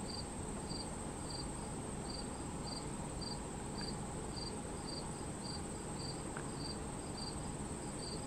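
Insects chirping: a steady high-pitched trill throughout, with a second, lower chirp repeating about twice a second.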